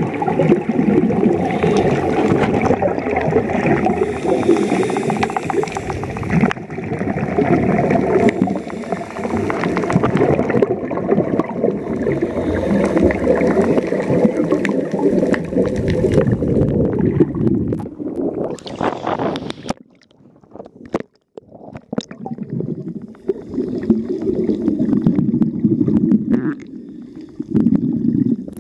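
Rough, choppy water sloshing and rumbling, with wind buffeting the microphone. The noise dips briefly about two-thirds of the way through.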